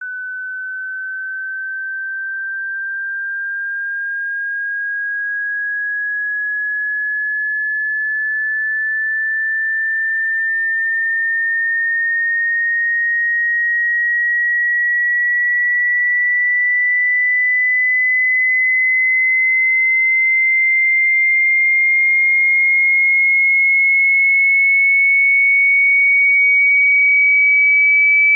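Telephone howler tone, the off-hook warning signalling a handset left off the hook: a single pure tone sliding slowly upward in pitch while steadily growing louder.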